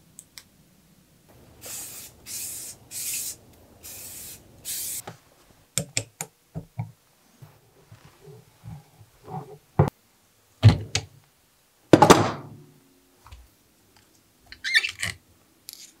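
Workshop handling of a suspension fork and its parts: about five short hissing bursts, then a string of knocks and clunks as metal fork parts are set down and worked on the bench, the loudest with a brief metallic ring.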